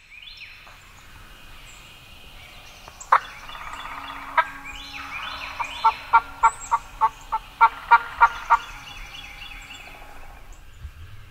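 Wild turkeys calling in spring woods. There are loud single calls about three and four and a half seconds in, then a run of about ten evenly spaced calls between six and eight and a half seconds. Higher bird chirps run under them.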